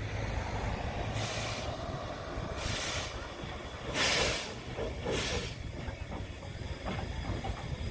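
Narrow-gauge steam locomotive working slowly: four sharp chuffs of exhaust steam a little over a second apart, the third the loudest, over a low rumble, with a few light knocks near the end.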